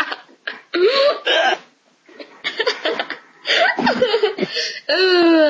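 Girls laughing in short broken bursts, with hiccups jolting through the laughter; near the end a longer laugh falls in pitch.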